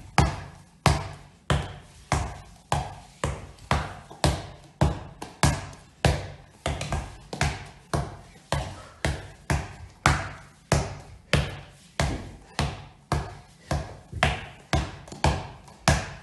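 Handball dribbled one-handed on a wooden floor: a steady run of sharp bounces, about two a second, each with a short low ring.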